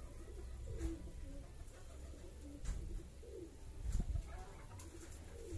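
A dove cooing faintly in the background, a series of short low coos, with a few soft clicks over a steady low hum.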